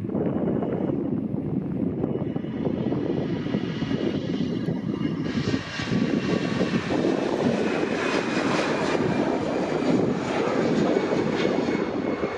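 Jet airliner's engines running as it passes: a steady low rumble, joined about five seconds in by a whine of several steady high tones and a hiss.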